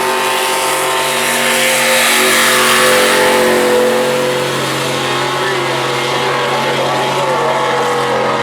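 Race pickup trucks' engines running hard at high, near-steady revs as they race around the oval.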